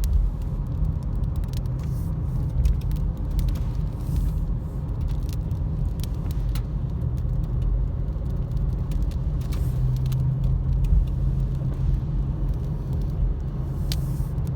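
Car engine and road noise heard from inside the cabin while driving: a steady low rumble with a hum that grows a little stronger partway through, and a few scattered faint clicks.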